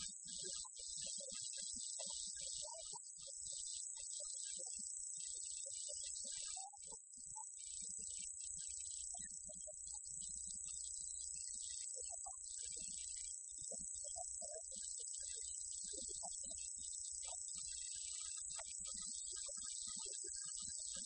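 A steady high-pitched whine, one unbroken tone, over a faint low hum, with no speech.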